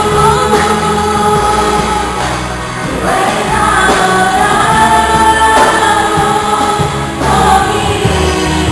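A gospel worship group rehearsing, several voices singing a song together in long held notes over band accompaniment with a steady bass.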